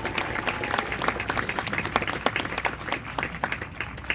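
Crowd applauding, with many irregular hand claps that thin out a little near the end.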